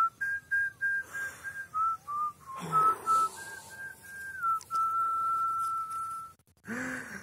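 A person whistling a slow tune: a run of short notes on one pitch, a few lower falling notes, then one long held note. Near the end comes a short vocal sound.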